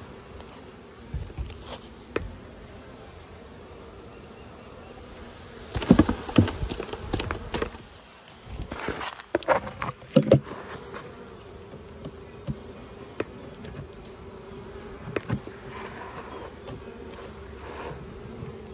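Honeybees buzzing in a steady hum around an open hive, with a few sharp wooden knocks and scrapes from hive frames being handled, loudest about six and ten seconds in.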